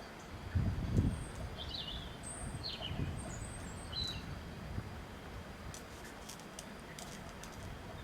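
Wind gusting in low rumbles, the strongest about a second in, with a few short high bird chirps between about one and a half and four seconds in.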